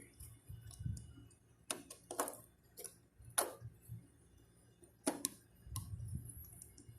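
Irregular sharp clicks and light metallic taps, about half a dozen, from hand tools and wire terminals being worked on an air-conditioner's magnetic contactor.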